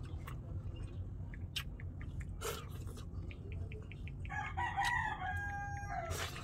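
A rooster crowing once, about four seconds in, a call lasting about two seconds, over faint small ticks.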